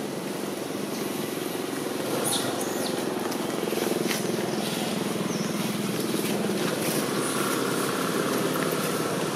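Steady hum of a motor vehicle engine running nearby, swelling a little about two seconds in.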